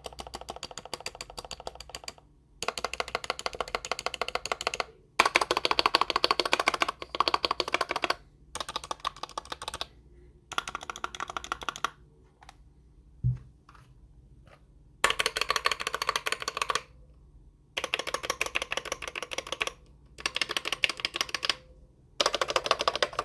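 Mechanical keyboard keys pressed in rapid bursts of one to two seconds, with short pauses between them. The rattle is a test of the keyboard's stabilizers and switches. One low knock about 13 seconds in.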